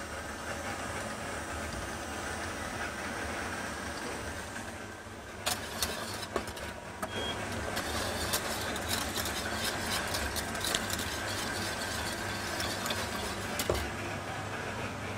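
KitchenAid stand mixer motor running steadily, its whisk beating meringue as cubes of butter are added to make buttercream. Irregular clicks and taps join in from about five seconds in.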